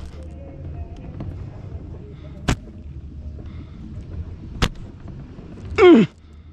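Sharp cracks of slingshot shots, one about two and a half seconds in and another about two seconds later. Near the end comes a loud, short cry that falls steeply in pitch.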